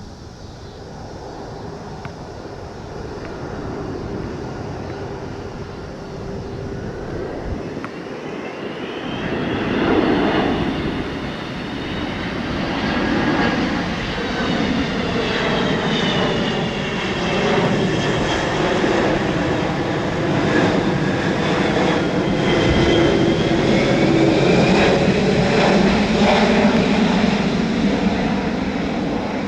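Jet airliner passing close by, its engine noise building over the first ten seconds and staying loud, with high whining engine tones that slide up and down in pitch.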